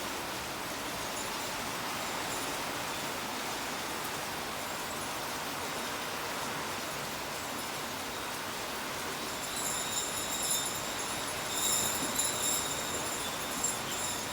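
Steady rain falling, an even hiss. About two-thirds of the way in, high jingling, ringing tones join it.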